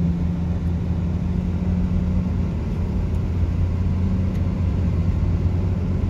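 A car cruising along a highway, heard from inside the cabin: a steady low engine hum over tyre and road noise.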